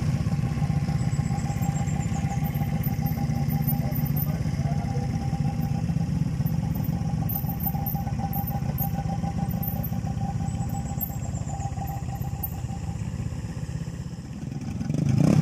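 Small underbone motorcycle engine running steadily at an even speed. The level dips briefly near the end, then comes back up.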